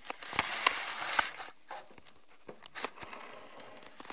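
Handling noise from the recording phone: rustling as cloth brushes over the microphone, with a few sharp clicks in the first second and a half, then fainter scattered ticks.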